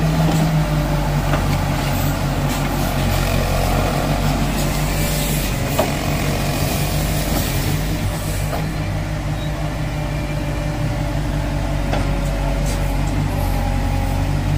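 Bobcat backhoe loaders' diesel engines running steadily, a constant low hum.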